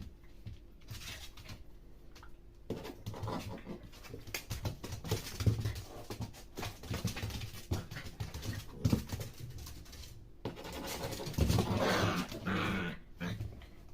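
A pet dog playing, making irregular breathing and scuffling sounds with scattered knocks, with a louder stretch near the end.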